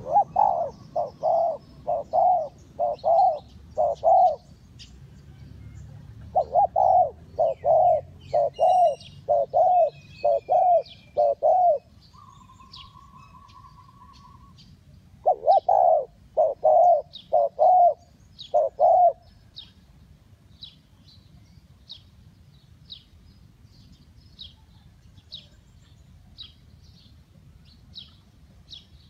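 Spotted dove cooing in three bouts of evenly spaced, repeated low coos, falling silent after about 19 seconds. Small birds chirp faintly and high throughout, with one chirping steadily about twice a second near the end.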